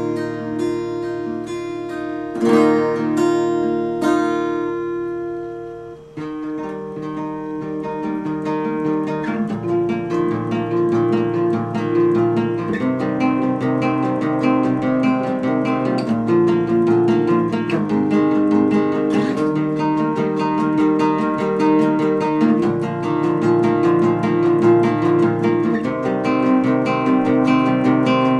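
Acoustic guitar music: a few strummed chords ringing out, then from about six seconds in a steady, quick pattern of picked notes.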